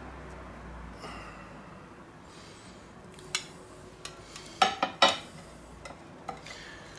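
Metal cake knife and cake server clinking against plates as a slice of cake is lifted and slid onto a plate: a few sharp clinks, scattered, with the loudest ones about five seconds in.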